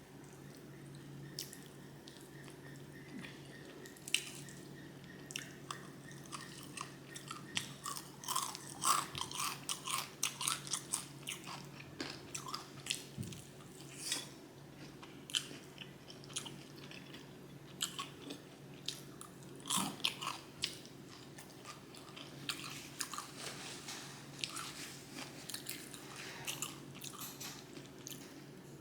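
A person eating close to the microphone: wet chewing and lip smacking with occasional crunches, in irregular bursts of many quick smacks. A faint steady hum runs underneath.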